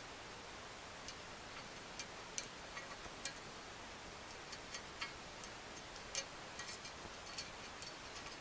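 Faint, irregular light clicks of steel needle rollers and a small screwdriver tip tapping against the bearing race as the needles are worked one by one into a rear A-arm's needle bearing, over a low steady hiss.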